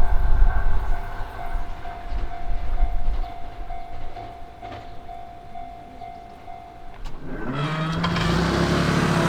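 Japanese level-crossing warning bell chiming rapidly and steadily, with a low rumble fading over the first second or two. The chiming stops about seven seconds in, and a train comes in with a rising motor whine and growing rumble near the end.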